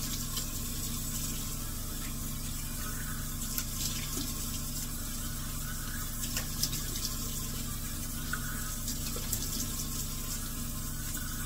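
Bathroom tap running steadily into a sink while a face is rinsed by hand, with occasional small splashes.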